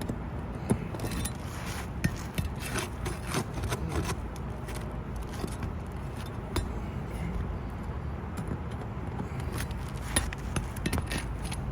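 Irregular metal scraping and clicking on asphalt roof shingles as nails are worked loose from an old, brittle shingle, over a steady low rumble.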